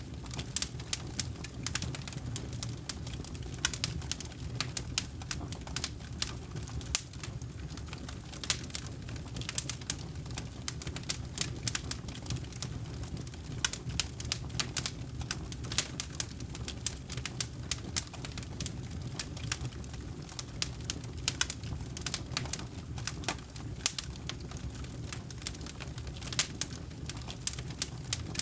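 Wood campfire burning, with frequent sharp crackles and pops over a low steady rumble of flame.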